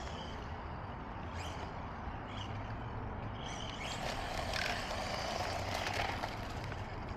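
Electric RC car running on asphalt: motor and tyre noise over a steady background, growing louder from about four seconds in for a couple of seconds.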